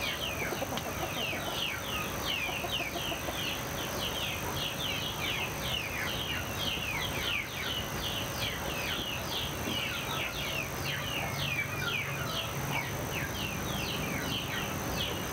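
Dense chorus of small birds chirping, many quick falling chirps a second, with chickens clucking underneath.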